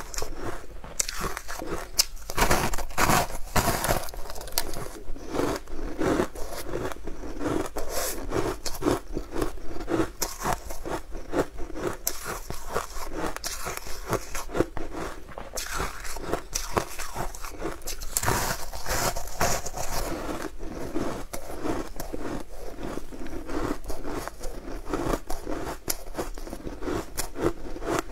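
Close-up eating sounds: biting and chewing crunchy sugar-coated fried sweets, a dense run of crackling crunches. The crunching is louder a few seconds in and again a little past the middle.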